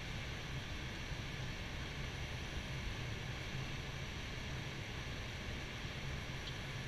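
Steady rush of airflow with a low engine hum on the flight deck of an Airbus A320 on final approach, landing gear down.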